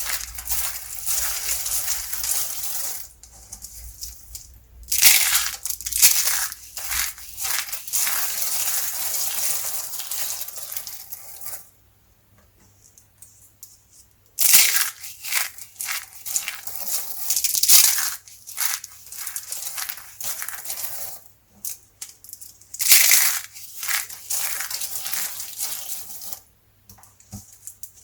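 Soap being crushed and broken apart: crumbly crunching and crackling in bursts. It stops briefly about twelve seconds in and again near the end.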